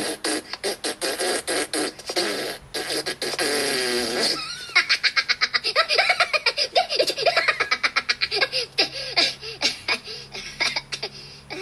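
High-pitched cartoon Minion voices laughing and babbling in quick bursts, with a held, wavering note about three seconds in.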